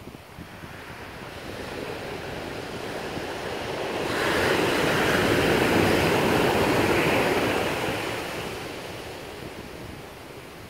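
Ocean surf: a wave builds and breaks onto the beach about four seconds in. Its rushing wash is loudest for a few seconds, then fades as the water runs up the sand.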